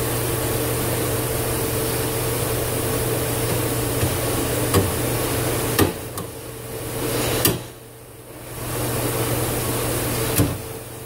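Steady hiss with a low hum from a steam test rig feeding steam and water to a Dunham #1 steam trap, with a few sharp clicks. The hiss drops away for about a second a little after the middle, and briefly again near the end.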